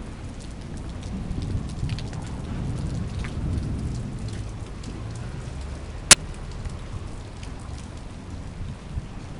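Rain falling, with scattered drops ticking close by and one sharp tap about six seconds in.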